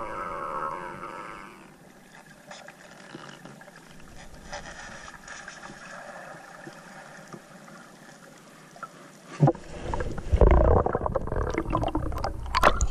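Underwater sound recorded through a camera housing while spearfishing: a muffled, fairly quiet stretch of water noise, then a sudden thump about nine and a half seconds in, followed by loud churning water and bubbles with a few sharp clicks near the end.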